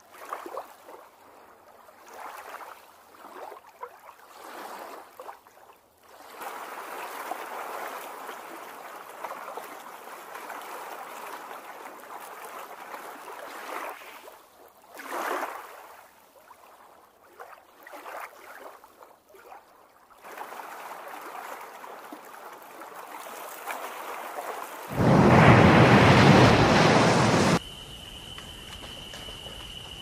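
Water running and lapping in uneven stretches, with a loud rush of noise lasting about two and a half seconds near the end. It gives way to a steady, high, insect-like trill.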